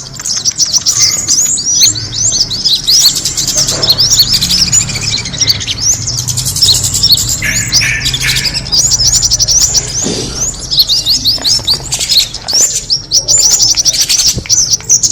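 Many small birds chirping and twittering in fast, overlapping high notes without a break, a bird-lure sound for attracting birds.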